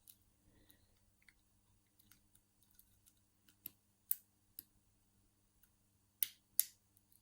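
Lock picks working the pins of a five-pin ISEO thumb turn Euro cylinder: faint scattered metallic ticks, with a few sharper clicks about four seconds in and again after six seconds.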